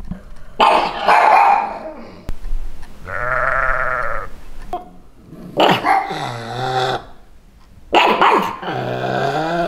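A pug barking in short bursts, with a sheep's long wavering bleat about two to four seconds in, then more barking from the pug.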